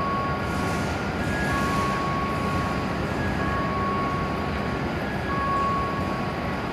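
Two-note electronic platform chime, a short higher note followed by a longer lower one, repeating about every two seconds, over the steady hum of an E7-series shinkansen standing at the platform.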